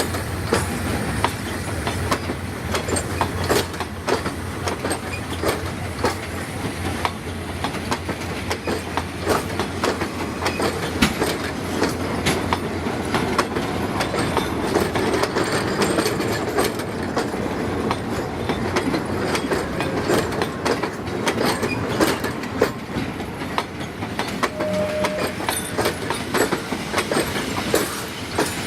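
Railway passenger coaches rolling past as a diesel-hauled train arrives at a station, wheels clicking over rail joints in a dense irregular run, with a faint wheel squeal. A low steady hum fades out in the first few seconds.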